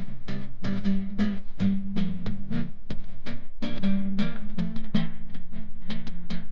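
Instrumental background music with guitar and a steady drum beat.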